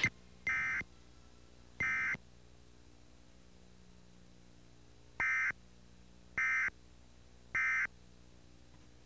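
Five short bursts of Emergency Alert System digital data tones, the buzzy warbling SAME code: the end-of-message signal that closes the alert. The last three come evenly, about a second apart, over a faint steady hum.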